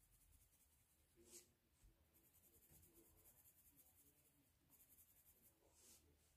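Very faint scratching of a coloured pencil shading on paper, with a couple of slightly firmer strokes.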